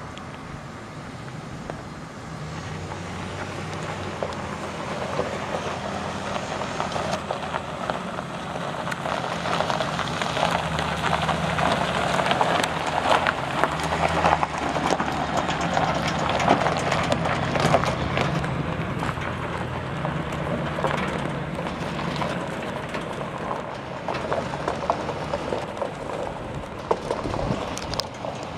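2007 Chevrolet Silverado 2500HD's 6.0-litre gas V8 running as the pickup drives slowly across gravel, its tires crunching on the stones. It gets louder as it passes close about halfway through, then fades as it moves away.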